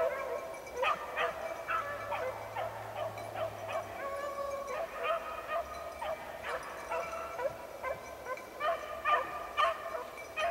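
A pack of beagles baying as they run a rabbit's trail: many overlapping voices, with short sharp yelps mixed among longer held bawls.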